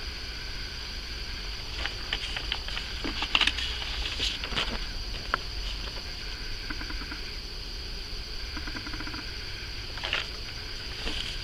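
Sheets of paper rustling and crinkling in the hands as one handwritten sign is swapped for the next, loudest a few seconds in, over a steady high hiss.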